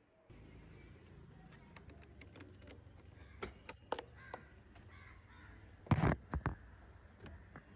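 A bird calling three times in quick succession about six seconds in, over a steady low background hum with scattered small clicks.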